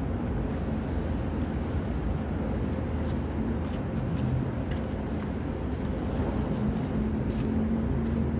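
Steady low rumble and hum of construction-site background noise, with scattered light clicks.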